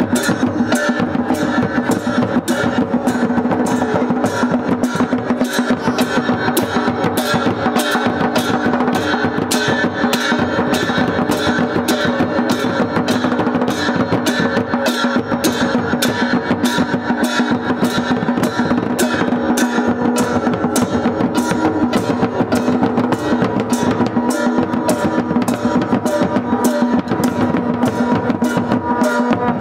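A procession drum band: large barrel drums beaten with sticks and big hand cymbals clashing in a fast, even beat, over a steady held tone.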